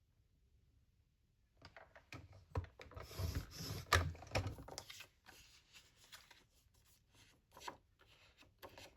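Paper being handled on a paper trimmer: rustling and sliding sheets with light clicks and taps, busiest in the middle, then a few scattered ticks.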